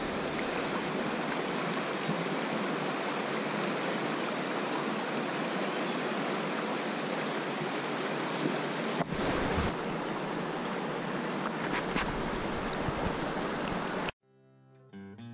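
Shallow, clear river rushing over stones in a riffle: a steady wash of running water. About 14 seconds in it cuts off abruptly and acoustic guitar music comes in.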